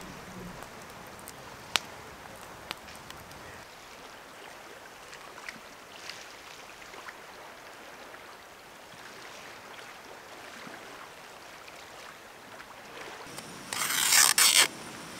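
Steady outdoor ambience of wind and water at a loch shore, with a few sharp clicks in the first few seconds. Near the end comes about a second of loud rushing noise that stops abruptly.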